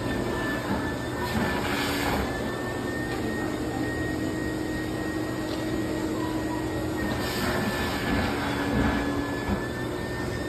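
A foot-pedal plush-toy stuffing machine running, blowing fibre fill through its nozzle into a stuffed dog: a steady rush of air with a steady high whine.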